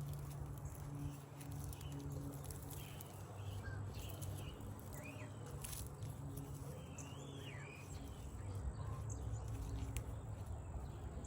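Scattered short bird chirps, a few small calls spread through the middle, over a steady low outdoor hum, with a few faint sharp clicks.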